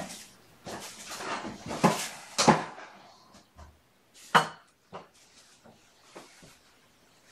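Someone handling things in the room: a run of scrapes, knocks and rustles, loudest about two and a half seconds in, with another sharp knock a little after four seconds.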